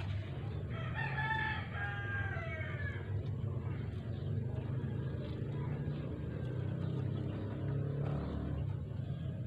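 Small root-crop grater's 200 W single-phase electric motor running steadily with a low hum. About a second in, a rooster crows once for about two seconds.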